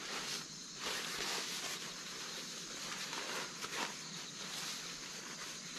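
Crinkling rustle of a plastic tarp bundle being handled and carried, with footsteps scuffing on dry leaves and dirt, over a steady high background hiss.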